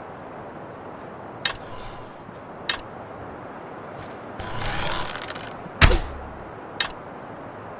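Bow-and-arrow shot sound effect: a few small clicks, a noisy swell of about a second, then one loud, sharp snap of the bowstring release and a last click.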